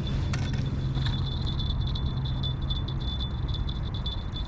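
Footsteps on a concrete breakwater and the light clink of a spinning rod and reel being handled, over a steady low hum that fades about three seconds in.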